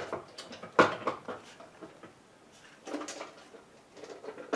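Hard plastic parts of a Philips HomeCooker cutting tower being fitted together: a sharp knock about a second in, then lighter clicks and handling clatter as the top attachment is twisted into place.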